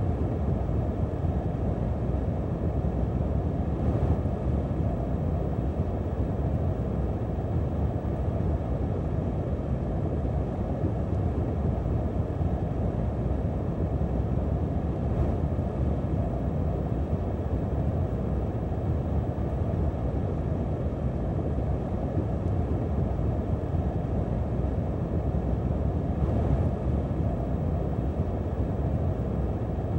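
Wind sound effect: a steady, low rushing noise with no gusts or whistling, unchanging throughout.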